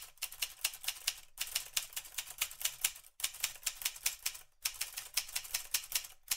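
Typewriter sound effect: keys clacking in quick runs of about seven strikes a second, in several bursts broken by short pauses.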